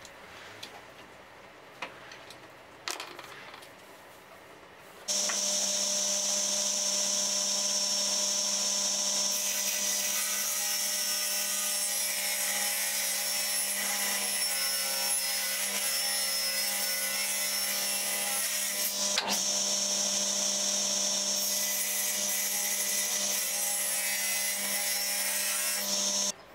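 Table saw running and cutting through a plywood sheet: a steady motor hum with a loud, high hiss from the blade in the wood. It starts suddenly about five seconds in, after a few faint clicks, and cuts off abruptly just before the end.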